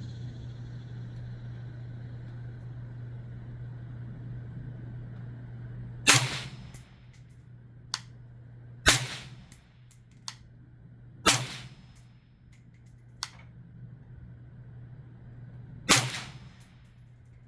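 Four suppressed 5.56 rifle shots, slow aimed fire a few seconds apart, from a piston-driven rifle fitted with a B&T VERS36 titanium suppressor, each followed by a ringing echo. Fainter sharp cracks fall between the shots, over a steady low hum.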